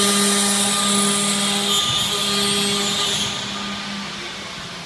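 CNC router spindle running with a steady whine while it mills aluminium, with a high hiss from the cut. About three seconds in it turns fainter and the hiss fades.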